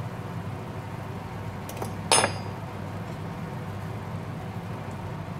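A metal spoon clinks sharply once against the frying pan about two seconds in, with a fainter tap just before it, as ground pork is stirred in the pan. A steady low hum runs underneath.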